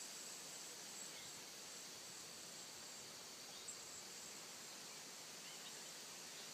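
Faint, steady high-pitched trilling of insects in the grass and trees, with a few faint short bird chirps.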